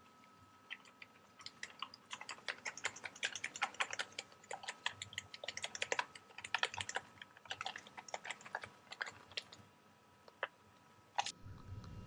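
Seasoning being shaken out of a shaker bottle: a dense run of quick, light ticks for several seconds that thins out toward the end, then a single click near the end.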